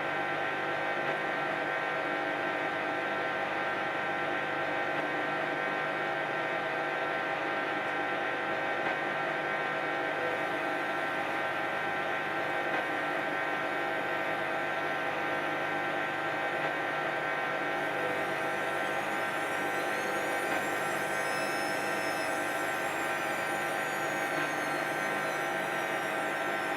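Hoover 10 kg washing machine on its 1400 rpm spin cycle: a steady, even motor whine with a drum hum under it. About two-thirds of the way through, a faint high whistle rises and then falls away.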